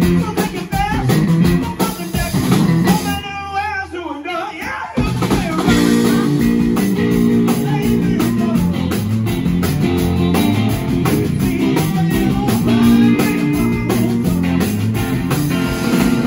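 Live blues-rock band of two electric guitars and a drum kit, with singing. About three seconds in the drums drop out for a short break, and near five seconds the full band comes back in with a repeating guitar riff.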